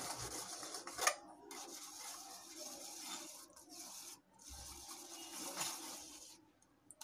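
A spoon rubbing and scraping pureed mango through a stainless-steel mesh strainer, a soft wet scraping as the pulp is pushed through and the fibres are held back. There is one sharper click about a second in.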